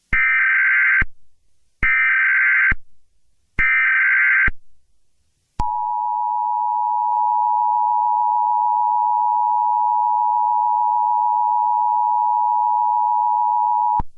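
Emergency Alert System tones: three short bursts of the SAME digital header, about two seconds apart, then the steady two-tone EAS attention signal held for about eight seconds before cutting off.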